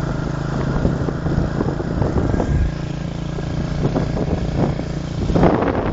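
Habal-habal motorcycle taxi's engine running steadily at low road speed, with scattered knocks and rattles. Near the end a burst of wind noise hits the microphone.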